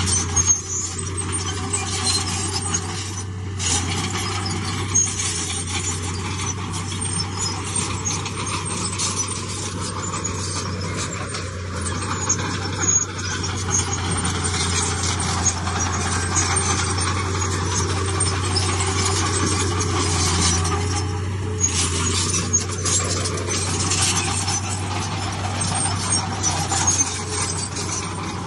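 Heavy diesel earthmoving machinery running steadily with a low engine drone, under a continuous clatter of rattling and scraping stone and metal.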